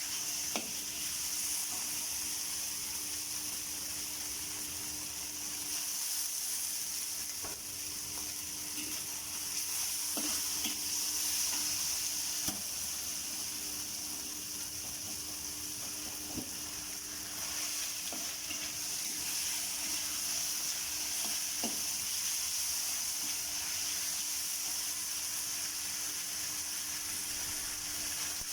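Food sizzling steadily in a hot pan as it is stir-fried, with a spatula clicking against the pan every few seconds.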